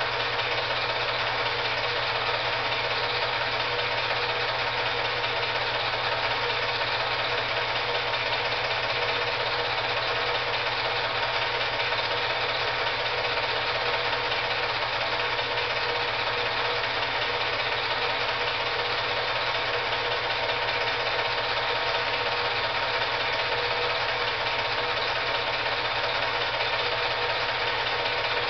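8mm film projector running: a steady mechanical whirr with a constant low hum, unchanging throughout, with no sound of the lifts themselves.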